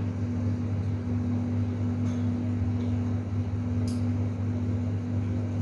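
A steady low hum from a running motor or electrical appliance, with two faint light clinks of cutlery on dishes about two and four seconds in.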